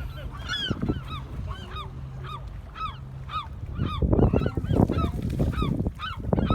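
A flock of birds calling over and over in short, arched, honking calls, several a second, agitated at a bird caught on a fishing lure. A louder rush of noise comes in about four seconds in.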